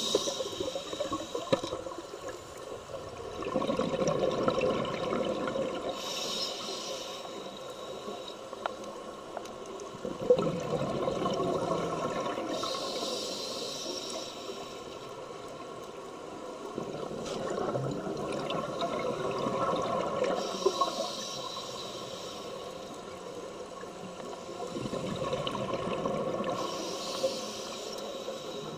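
Scuba diver breathing through a regulator underwater: a short hiss on each inhale, then a longer gush of bubbling exhaust on each exhale. The cycle repeats slowly, about every six to seven seconds.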